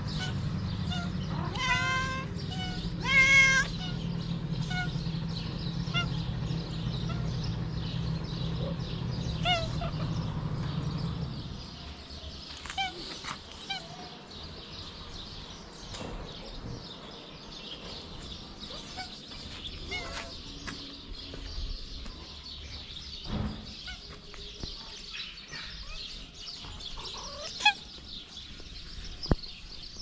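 Stray cat meowing, two loud drawn-out meows a couple of seconds in, then a few short, fainter meows spaced out. A steady low hum lies under the first dozen seconds and stops abruptly.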